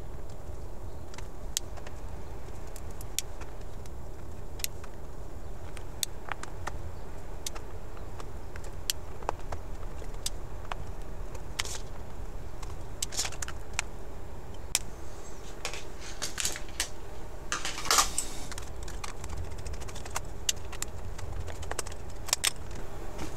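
Scattered small clicks and taps from a Torx screwdriver undoing the tiny security screws of a Dell XPS 15 laptop's bottom panel, and from the screws being dropped into a small plastic box, with the loudest click about 18 seconds in. A steady low hum runs underneath.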